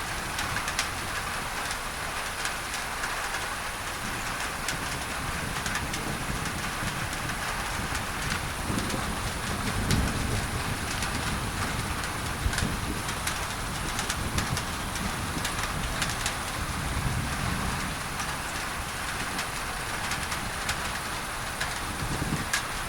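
Steady rain on a tin roof with scattered sharp drop ticks, under an even hiss of masking noise. Low rumbles of thunder swell up several times, the strongest about ten seconds in.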